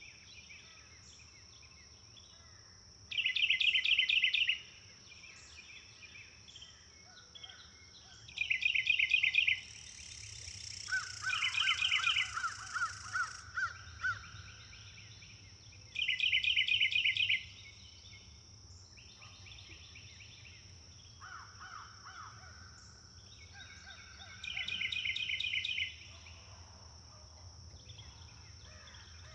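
Wild birds calling: a loud, rapid trilled call bursts out four times, each about a second and a half long, over quieter bird calls and a steady high insect drone.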